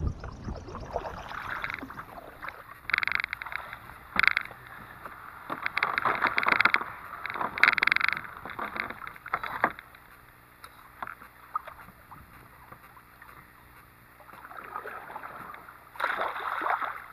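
Kayak paddle strokes in calm water: a run of splashing strokes, a quieter stretch, and another stroke near the end.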